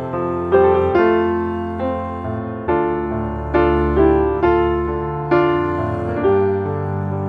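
Background piano music: slow, gentle notes or chords, a new one about once a second, each fading away.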